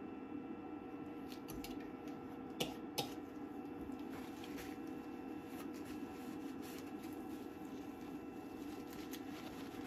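Paper kitchen towel rustling and crinkling in gloved hands as resin drips are wiped off a 3D printer, with scattered light ticks and two sharper clicks close together about two and a half seconds in, over a steady low hum.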